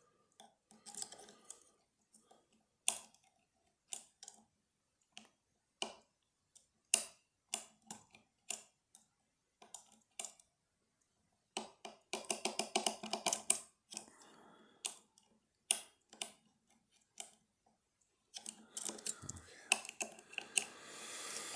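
Picking tools working inside a lever lock: irregular sharp metallic clicks and taps as the levers are lifted and set, with short stretches of faster rattling and scraping.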